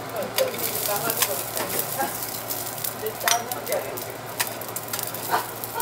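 Fried rice sizzling on a steel teppanyaki griddle while a metal spatula scrapes and taps the plate, scooping the rice into a bowl. The hiss is steady, with several sharp clinks.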